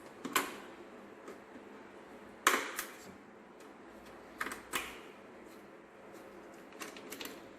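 Hand tools clicking and knocking against car parts while the engine bay is stripped: a few sharp clicks, mostly in close pairs, the loudest about two and a half seconds in.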